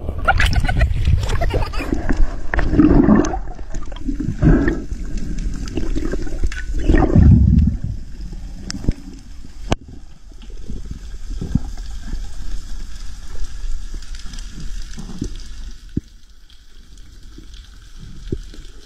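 Water gurgling and sloshing as heard underwater, with bubbling surges during the first eight seconds. After that it settles to a quieter wash with scattered clicks, one of them sharp.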